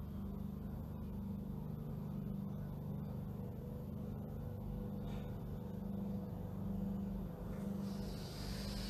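Steady low background hum, with a person breathing out audibly near the end.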